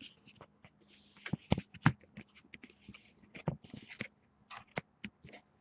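Objects being handled on a table: a series of sharp knocks and clicks, the two loudest about a second and a half and two seconds in, mixed with short rustles.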